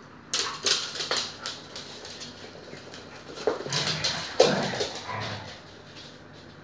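Siberian husky puppies and their mother yipping and whimpering in play. There is a run of short, sharp calls in the first second and a half, then a louder group of yelps and barks around the middle.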